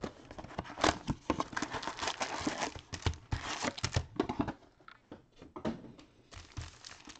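A 2022 Panini Prizm World Cup Breakaway hobby box being opened and its foil trading-card packs pulled out and stacked on a table: crinkling of foil wrappers, cardboard rustle and light taps. It is busiest in the first four seconds or so, eases off, then rustles again near the end.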